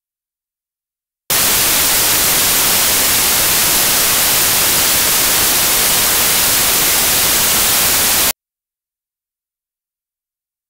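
A loud, steady burst of white-noise static, even and hissy across the whole range. It switches on abruptly about a second in, lasts about seven seconds, and cuts off just as abruptly, with dead silence on either side.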